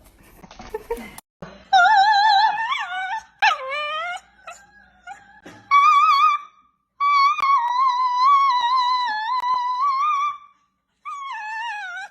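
A dog howling in several long, wavering notes, the longest held about three seconds; the howling starts after a couple of seconds and breaks off near the end.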